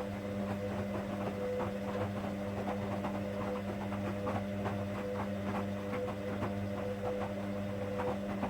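Hoover washing machine running its 59-minute Daily wash programme: a steady motor hum with a tone that pulses regularly, and faint scattered clicks and splashes from the load in the drum.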